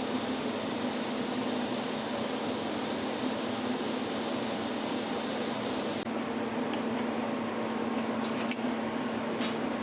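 A steady machine hum with a constant low tone, like an electric motor running. A few light clicks and clinks come in the last few seconds.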